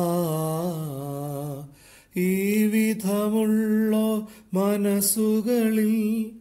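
A man singing a slow Malayalam hymn unaccompanied, in three long held phrases with a wavering vibrato and short breaths between them.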